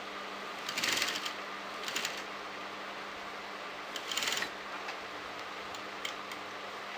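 Sewing machine stitching in three short spurts as fabric is guided around a curved neckline seam, with a few light clicks and a steady low hum in between.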